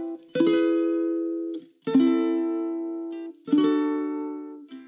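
Music: a strummed string instrument plays one sustained chord about every one and a half seconds. Each chord rings and fades, then is cut off just before the next is struck.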